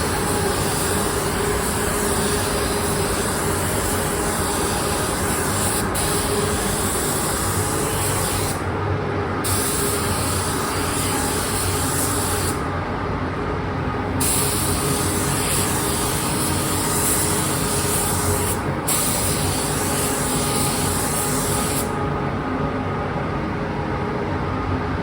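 Paint spray gun hissing steadily as it sprays, with the air cut off several times when the trigger is let go (about 9 s in, 13 s in, briefly near 19 s, and from about 22 s on).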